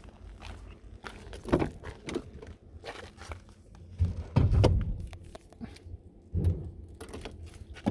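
A car bonnet being opened by hand: scattered clicks and footsteps, with a few low thumps, the loudest about halfway through.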